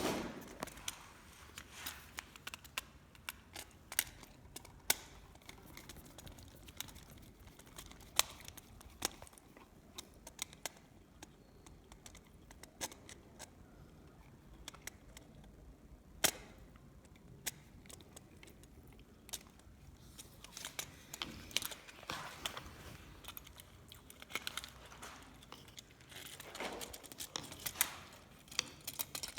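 Irregular sharp clicks and light taps of hand work with small tools and parts, with brief rustling twice in the second half.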